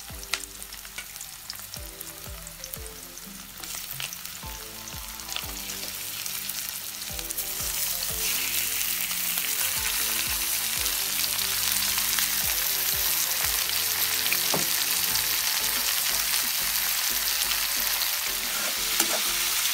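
Oil sizzling in a wok as aromatics sauté, growing louder about seven seconds in as raw chicken pieces go into the hot pan. Soft background music with a steady beat runs underneath.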